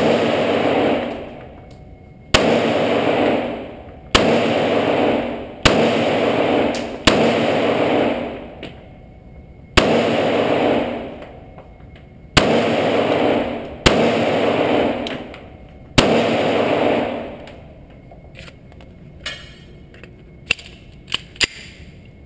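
Glock 30 pistol firing .45 ACP 230-grain ball ammunition, nine slow single shots about one and a half to two and a half seconds apart, each ringing on for over a second in the indoor range. A few light clicks follow near the end after the firing stops.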